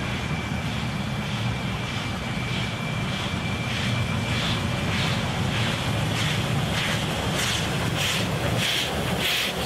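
Steam locomotive working a train: a steady low rumble, with rhythmic exhaust chuffs that come through clearly from about four seconds in, two to three a second.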